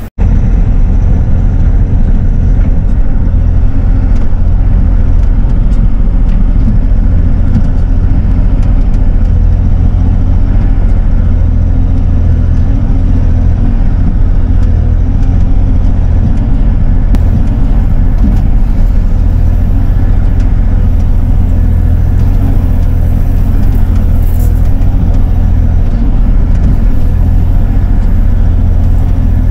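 Bobcat E42 mini excavator's diesel engine running loud and steady with a deep drone while the machine digs out crushed gravel with its bucket.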